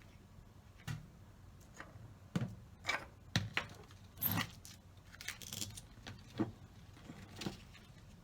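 Kitchen utensils and dishes being handled during food preparation: about ten separate clicks, knocks and clinks, several in quick clusters near the middle.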